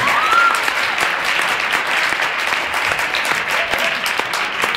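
Theatre audience applauding: dense, steady clapping from many hands, with a short rising whistle near the start.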